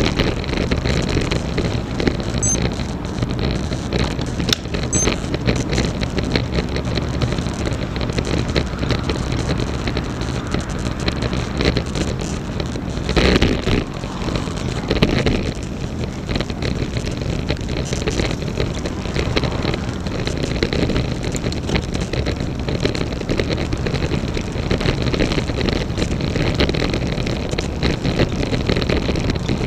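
Road bike being ridden, with wind buffeting the microphone and frequent small clicks and rattles. The louder rattle is the top tube bag; the ticking click comes from a cause the rider cannot find.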